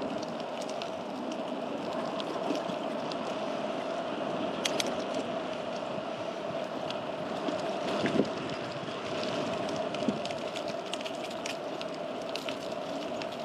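Steady rolling noise of a bicycle ride: tyres on pavement and air rushing past, with a constant hum and scattered small clicks.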